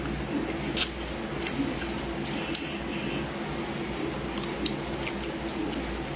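Close-miked chewing and biting of stir-fried green beans: irregular crisp snaps and wet mouth clicks, the sharpest about a second in, over a steady low hum.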